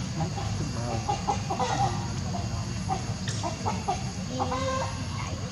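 Many short clucking calls, one after another, over a steady low rumble.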